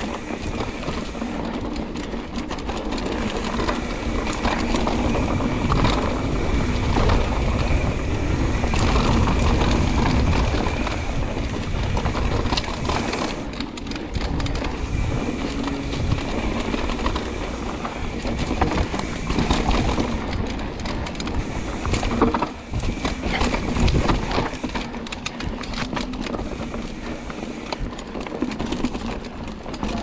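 Santa Cruz Hightower LT full-suspension mountain bike ridden along a dirt singletrack: knobby tyres rolling and crunching over dirt and roots, with the bike rattling and clicking over bumps and a steady low rumble.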